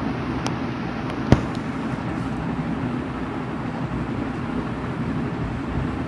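Steady rushing background noise, with one sharp click about a second in.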